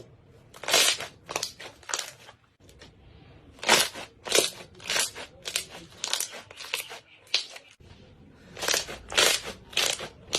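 Slime being squished and pressed by hand, giving a run of short crackly squishes about two a second, in three groups broken by abrupt cuts.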